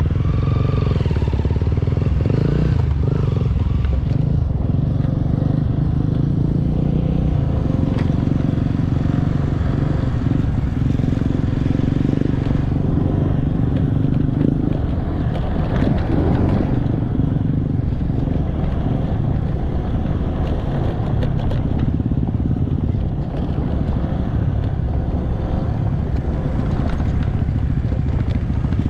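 A vehicle's engine running steadily while driving along, with no change in pace.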